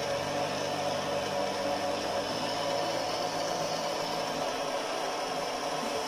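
Washer-dryer's drying fan, a small shaded-pole blower motor, running with a steady whir. It runs normally and is no longer noisy, its fault repaired.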